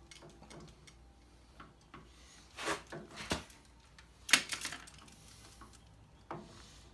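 Scattered knocks and clicks of hands working with tools and metal parts. There are a few sharp taps between about two and a half and three and a half seconds in, the loudest a little past four seconds, and one more near the end.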